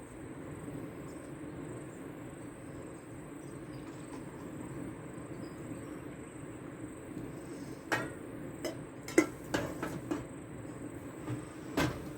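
Steady hum of a portable gas camp stove heating water for tea, with a few sharp clinks and knocks from about eight seconds in.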